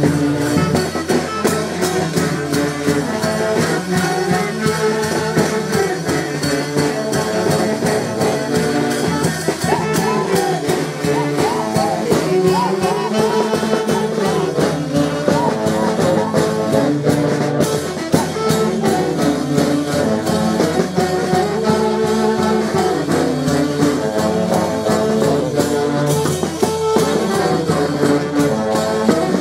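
A village band playing a lively dance tune: saxophones carrying the melody over a steady beat of bass drum and cymbals.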